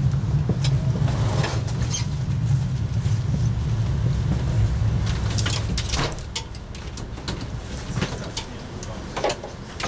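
Steady low engine rumble of an idling vehicle, fading about six seconds in, with scattered short clicks and crunches.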